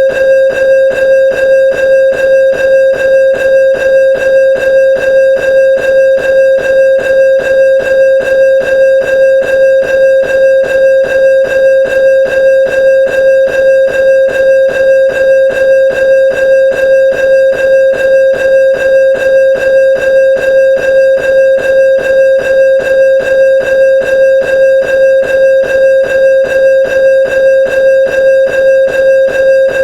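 Railroad crossing bell ringing steadily, one bright ringing tone struck in an even rhythm of about two strokes a second.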